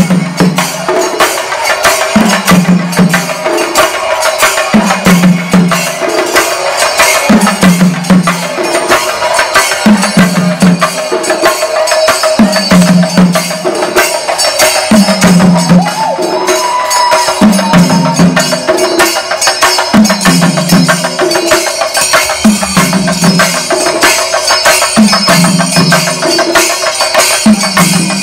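Singari melam ensemble of chenda drums beaten fast with sticks, with brass elathalam cymbals clashing along and a deep low stroke recurring about every two and a half seconds.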